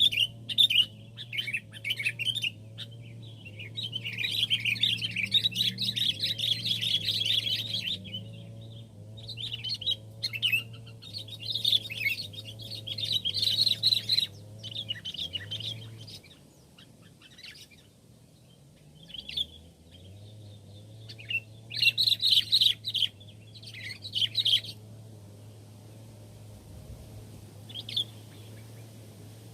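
Sooty-headed bulbuls (kutilang) calling in repeated bouts of rapid, bright chirping, with short pauses between bouts. A steady low hum runs underneath and drops out for a few seconds past the middle.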